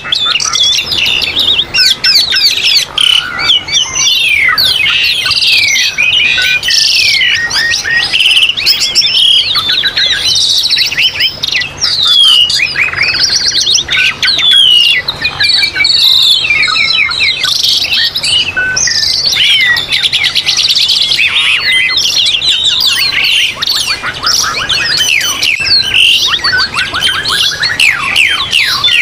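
Songbirds singing continuously in a dense, overlapping stream of rapid chirps, whistled sweeps and fast trills, with no pause.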